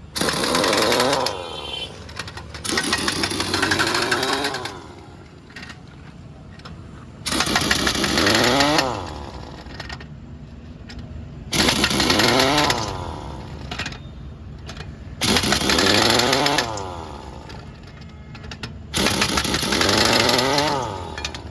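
Pneumatic impact wrench working the wheel nuts during a tractor tyre change, running in six short bursts of about a second and a half. Its pitch rises and falls in each burst, with a hiss of air.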